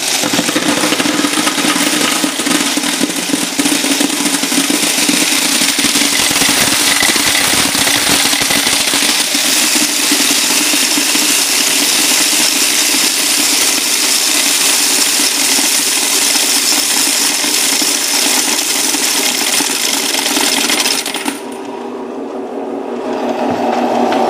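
Quarters rattling continuously as they pour through an electric coin counter. About 21 seconds in the coin rattle stops and the machine's motor keeps humming on its own, with the hopper run empty.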